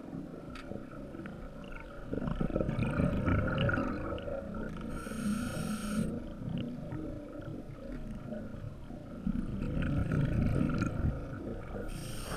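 Scuba regulator breathing heard underwater: a hissing inhalation about five seconds in and another near the end, and low rumbling bursts of exhaled bubbles about two seconds in and again about nine seconds in.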